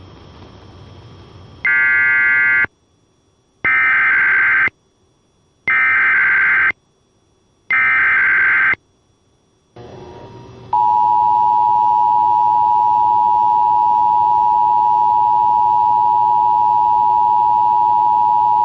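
Emergency Alert System tones: four one-second screeching bursts of SAME digital header data, each followed by a silent pause. Then the steady two-note EAS attention signal sounds for about eight seconds.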